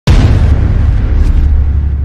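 A deep cinematic boom hit that starts abruptly and rumbles down slowly, heavy in the low end.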